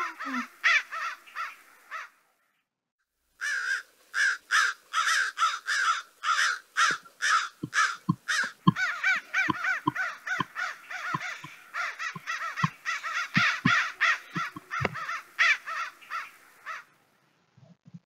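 Recording of American crows cawing: a quick run of caws, a short break about two seconds in, then caws one after another for over ten seconds, stopping shortly before the end.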